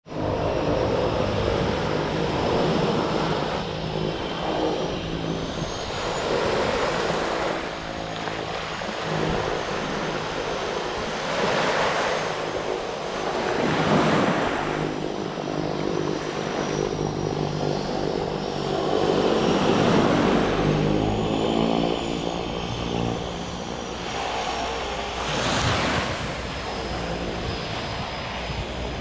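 Seaplane's propeller engines running on the water, a steady drone with a thin high whine that slowly rises and falls. Small waves wash onto the beach every few seconds.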